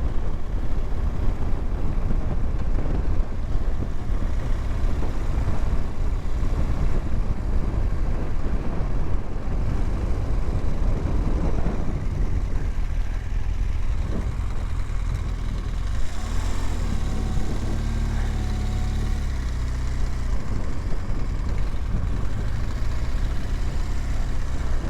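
BMW R1200GSA motorcycle's boxer-twin engine running under way with a rough, noisy low rumble, then from about two-thirds of the way in holding a steady, even note at low revs, as when rolling slowly or idling.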